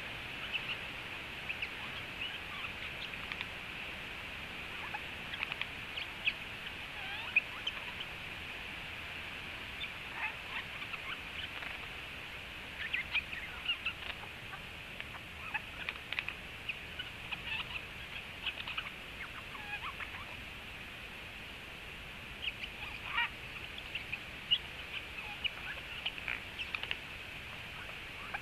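Eurasian jay making soft clicks and short chirps in scattered clusters, over a steady high hiss.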